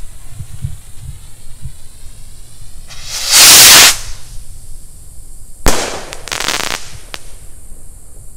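Consumer skyrocket (Flying Pig rocket) launching with a loud whoosh lasting about a second, then bursting with a sharp boom about two seconds later, followed by a brief crackle.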